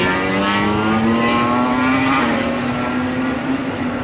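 MotoGP race motorcycle engine accelerating past the circuit, its pitch climbing steadily. It steps down slightly about two seconds in, like an upshift, and then keeps rising.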